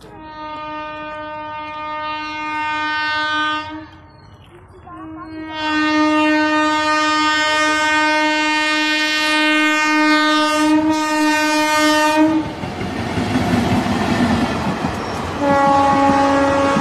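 Indian Railways locomotive horn sounding three long, steady blasts as the train comes in: one of about three and a half seconds, a louder one of about seven seconds, and a third starting near the end. Between the second and third blasts comes the rumble and clatter of the train's wheels on the rails as it passes close by.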